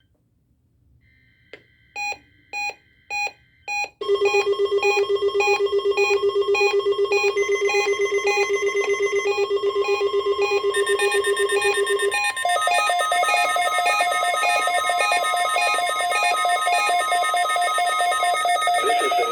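Weather radio receivers' alert alarms going off for the required weekly test: four short beeps, then a rapid, trilling beep that steps up in pitch about two-thirds of the way through. Under it runs a steady tone, the NOAA Weather Radio 1050 Hz warning alarm tone.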